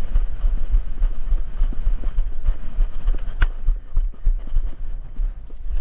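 Running footsteps and the knocks and rattle of gear, over a heavy low rumble of wind and jostling on the body-worn camera's microphone, with a single sharp click about three and a half seconds in.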